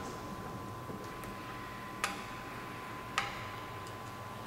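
Sharp metal clicks, two clear ones about a second apart, as a wrench tightens the motor-head slide lock on a magnetic core drill. A faint steady hum runs underneath.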